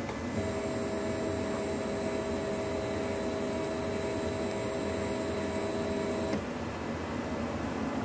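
Stepper motor power-feeding a milling machine's Y-axis table at a constant speed: a steady two-tone whine that starts about half a second in and cuts off sharply about six seconds in as the feed stops, over a steady background hiss.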